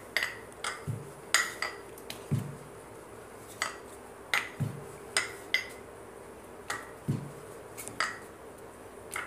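Wooden rolling pin clicking and knocking against a rolling board while rounds of momo dough are rolled out: irregular short knocks, roughly one or two a second, some with a dull thump.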